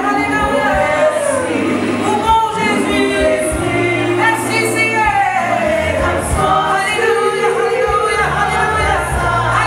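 Gospel worship song sung by many voices together, with sustained phrases over a steady low accompaniment.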